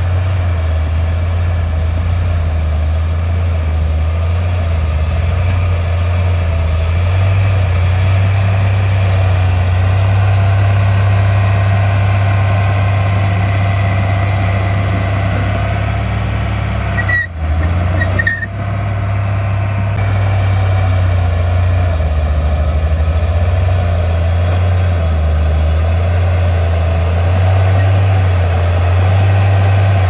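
Komatsu D51P crawler bulldozer's diesel engine running steadily under load as it pushes earth. The sound breaks off briefly twice a little past halfway.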